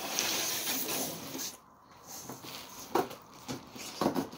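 Packing being handled: a rustling, scraping hiss of cardboard sheets, bubble wrap and packing peanuts for about a second and a half, then a few short knocks near the end.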